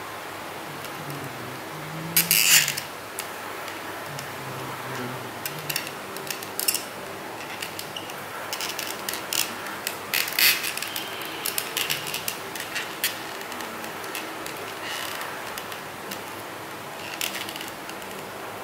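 Plastic clicking and knocking from a Rhino action figure as its loose parts are pressed back together and its joints are moved, with louder clicks about two and a half seconds in and again about ten and a half seconds in.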